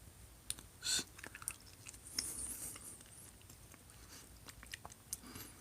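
A person chewing a mouthful of chicken curry: faint, scattered wet mouth clicks and smacks, with a slightly louder click about a second in.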